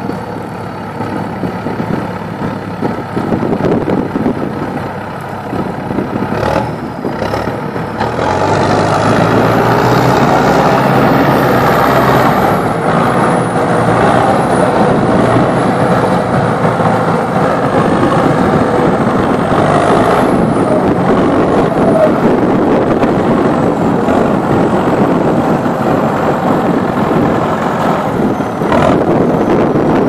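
Zetor Crystal 10145 Turbo tractor's turbocharged diesel engine running hard under load, with a second tractor's engine alongside. The engines get louder about eight seconds in and hold there, with a faint high whine wavering above them.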